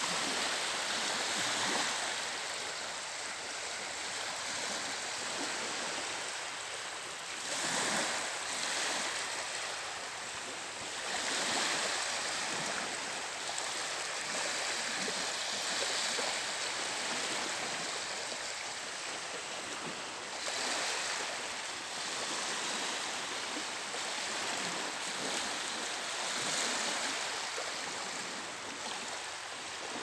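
Small waves of the Gulf of Riga washing in over a flat sandy beach: a steady hiss of gentle surf that swells every few seconds as each wave runs up the sand.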